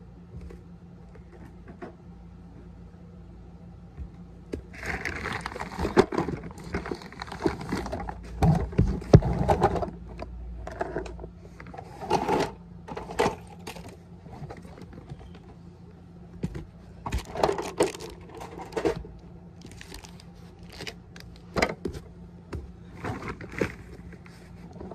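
Plastic toy garbage truck being worked by hand: its loader arm and plastic parts clatter, knock and scrape irregularly, starting about five seconds in. A steady low hum runs underneath.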